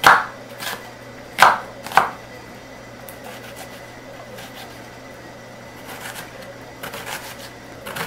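Chef's knife cutting a white onion on a wooden cutting board: four loud separate cuts knocking on the board in the first two seconds, then softer, quicker chopping near the end.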